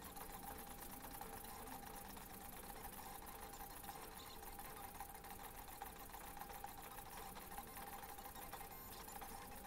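DIY XY pen plotter's stepper motors driving the pen carriage along drawer-slide rails as it draws: a faint, steady whine over a fast, even ticking, with the machine running at four times normal speed.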